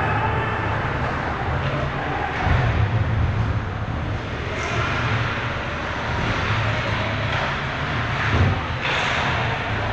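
Ice hockey rink sound during play: a steady low rumble with scraping of skates on the ice, rising in brief hissing swells about halfway through and near the end, and a few faint knocks.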